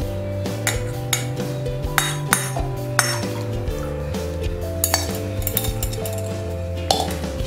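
Scattered light clinks of a small steel strainer and steel pan against a glass bowl while jaggery water is strained, over steady background music.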